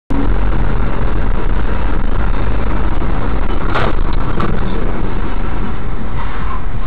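Steady road and engine rumble inside a moving car, picked up by a dashcam microphone. Two short sharp clicks just past the middle.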